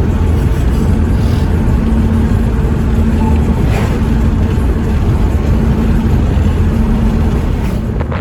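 Steady low rumble of an engine running at an even speed, with a faint steady hum.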